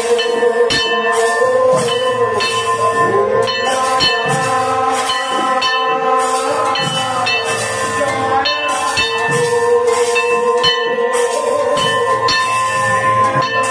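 Bengali kirtan percussion: brass hand cymbals (kartal) and a bronze gong plate (kansar) beaten with a stick clash in a steady rhythm with a khol drum, over a continuous ringing tone.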